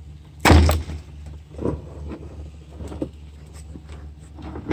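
Plastic clicks and knocks of a wiring connector being unclipped and pulled off the back of a Toyota Yaris factory headlight, with one loud knock about half a second in and a few lighter clicks after.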